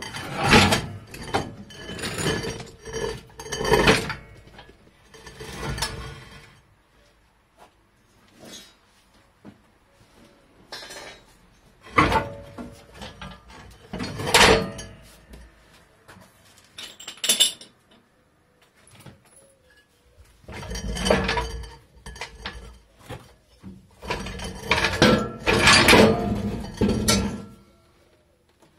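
Irregular metal clanks, knocks and rattles in bursts, with quieter gaps between: a car's steel rear axle and trolley jack being worked out from under the car.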